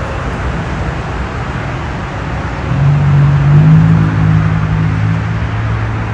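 An engine running steadily, its low hum swelling louder about three seconds in and then holding.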